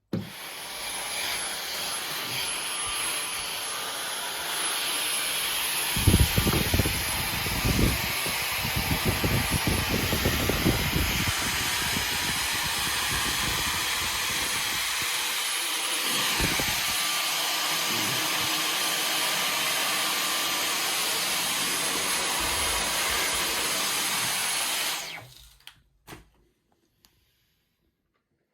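Dyson V15 Detect cordless stick vacuum switched on and running with a steady high whine, with uneven low rumbling and knocks a few seconds in as the nozzle meets a surface. It is switched off near the end and winds down over about a second.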